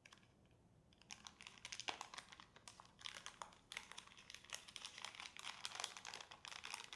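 Metallized anti-static bag being handled and opened by gloved hands: quiet, irregular crinkling and crackling of the plastic that starts about a second in.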